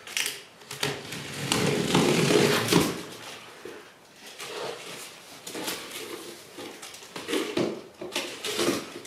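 A cardboard box being cut open along its tape with a utility knife and its flaps pulled back: a run of scraping and rustling of cardboard, loudest about two seconds in, then shorter rustles as the flaps are folded.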